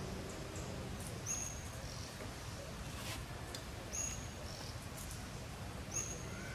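Short, high-pitched bird chirps, three times about two seconds apart, over a steady outdoor background hiss.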